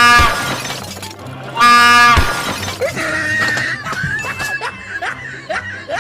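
Two short, loud train horn blasts, the second about a second and a half after the first, followed by excited voices over background music.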